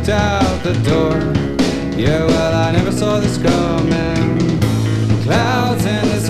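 Rock band playing a song: men singing over electric guitar and a drum kit with cymbal hits, with a steady low bass underneath.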